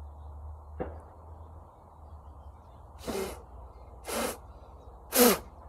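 A person blowing three sharp puffs of breath about a second apart, blowing freshly cleaned lawn mower parts dry, with a faint click about a second in.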